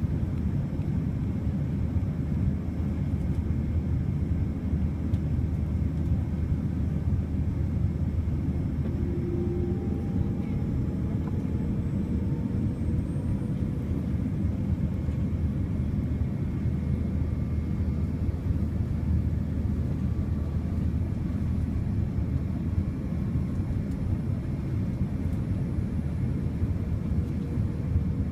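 Steady cabin drone of a Boeing 787-9 airliner in flight, heard from a window seat: an even rush of engine and airflow noise, heaviest in the low range, with a faint steady hum above it.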